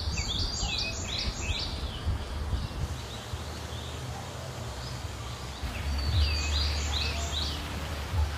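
A bird calls a quick run of four falling whistled notes, once at the start and again about six seconds in, over a steady low rumble.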